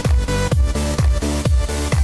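Electronic dance music with a steady kick drum, about two beats a second, under sustained synth notes.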